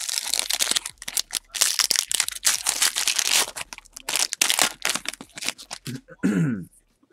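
Foil trading-card pack wrapper being torn open and crinkled by hand: a dense run of crackling and tearing that stops about six seconds in.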